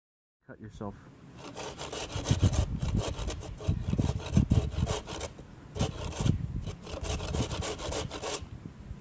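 Hand saw cutting through a wooden branch in quick back-and-forth rasping strokes, about two a second. It starts about a second in and stops near the end.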